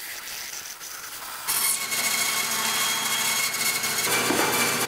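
Bandsaw blade cutting a 45-degree chamfer along a softwood 2x4, a steady motor hum under the hiss of the blade in the wood. It is quieter for the first second and a half, then louder for the rest of the cut.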